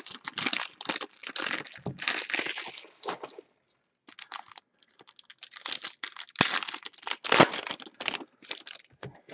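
Foil trading-card pack wrappers being torn open and crinkled by hand, in irregular bursts of crackling with a short pause about three seconds in and a sharp click midway.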